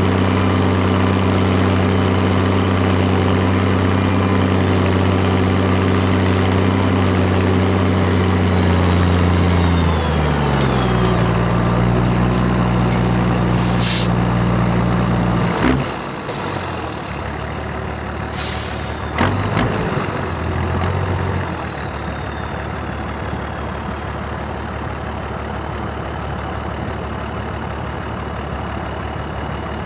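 Valtra BH180 tractor's six-cylinder diesel on a straight-through exhaust, running steadily, then its revs drop about a third of the way in as it slows. About halfway there is a thump and the engine note falls away to a steady low rumble, with two short hisses of air around then.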